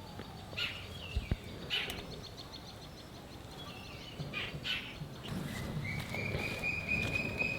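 Small birds chirping now and then, with a single sharp click about a second in and a thin, steady high tone over the last two seconds.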